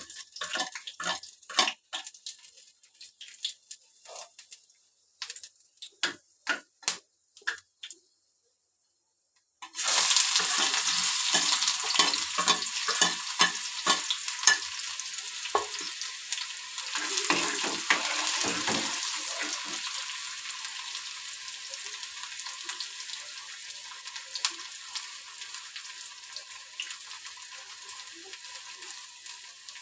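Scattered knocks and clicks of utensils, then about ten seconds in a sudden loud sizzle as an ingredient goes into hot oil in an aluminium kadai. The sizzle fades slowly while a metal spoon knocks and scrapes against the pan as it is stirred.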